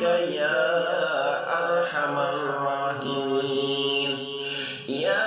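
A voice chanting an Arabic supplication (dua) in long, melodic held notes that glide in pitch, with a brief dip near the end.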